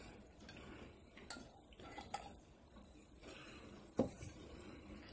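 Quiet, scattered clinks and taps of tableware (forks on plates and a glass salsa jar) during a meal, a few separate clicks with one louder knock about four seconds in.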